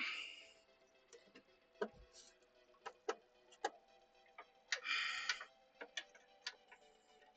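Scattered light metal clicks and taps of a 9/16 socket being tried on the nuts that hold a sewing machine head to its cast iron treadle base, with two short scraping rustles, one at the start and one about five seconds in.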